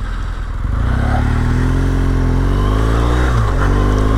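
BMW GS boxer-twin motorcycle engine pulling away and accelerating, its note climbing steadily. A little after three seconds it dips briefly, then starts climbing again.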